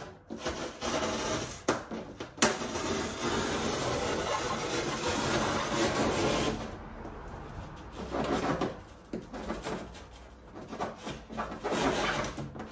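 The metal hook of a tape measure scoring a line into a foil-faced Kingspan rigid foam insulation board: a steady scraping for about six seconds with a sharp click about two seconds in, then fainter, broken scrapes.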